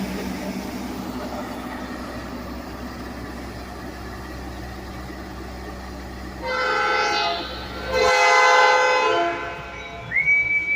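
A train's horn sounds two long blasts over the steady rumble of the idling train, signalling that it is about to move off. The rumble stops during the second blast. A single high whistle tone starts near the end.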